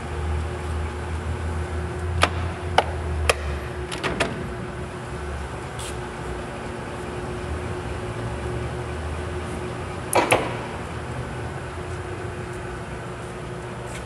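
Steady low machine hum with a faint steady tone over it, broken by a few sharp clicks a couple of seconds in and a louder double knock about ten seconds in.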